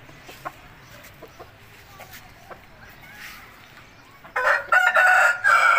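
A rooster crows once near the end, a loud call of about a second and a half. Before it there are only a few faint clicks.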